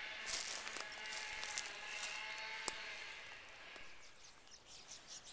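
Footsteps and small knocks of someone walking a dirt trail while filming, over a faint steady hum of a distant motor that fades out about four seconds in. Near the end, quick high ticking comes in.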